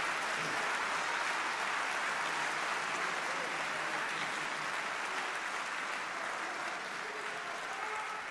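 Audience applauding, with a few voices calling out, slowly dying down toward the end.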